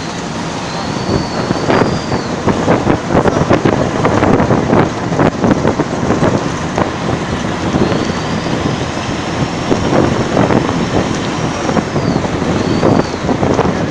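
An old Tata bus's turbo diesel engine running under load, its turbocharger whistle rising and falling. The whistle comes in briefly about a second in, then swells into a long rise and fall in the second half, with a short burst near the end. Underneath are a steady engine and road din and frequent knocks and rattles.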